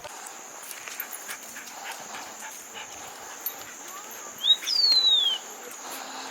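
An animal's high call: a short note, then a longer whine gliding steeply downward, about four and a half seconds in.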